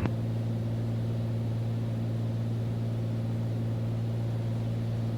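Steady drone of a Beechcraft Bonanza's single piston engine and propeller in flight, heard from the cockpit, holding an even pitch.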